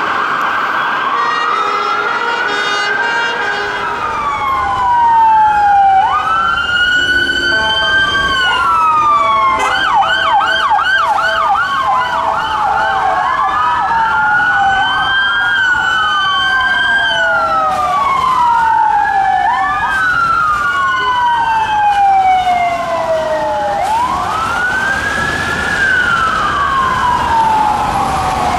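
Several emergency sirens from a convoy of unmarked police cars sound at once, in slow wails that overlap and rise and fall out of step. About ten seconds in there is a burst of fast yelp. A steady multi-note tone is heard briefly at the start.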